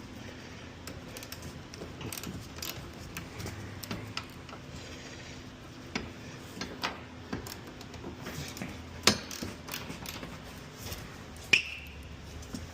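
Hand tools working on car door hinge bolts: scattered metallic clicks, taps and knocks, the loudest a sharp knock about nine seconds in and a ringing metal clink about eleven and a half seconds in, over a faint steady low hum.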